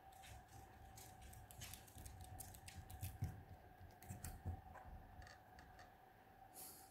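A chihuahua's claws clicking and scrabbling as it pounces on a stuffed toy, with two soft thumps a little past the middle. A faint steady hum runs underneath.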